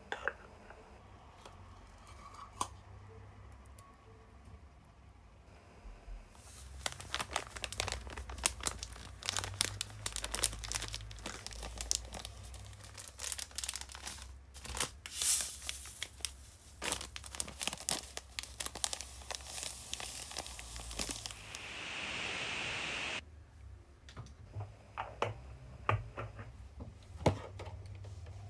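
Paper sachets of powder being torn open and crinkled, and the powder shaken out into a glass bowl, in a long run of crackling. About two-thirds of the way in there is a second and a half of steady pouring as milk goes into the bowl.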